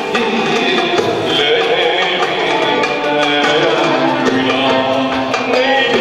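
A male soloist singing a Turkish art music song, accompanied by violins and hand percussion.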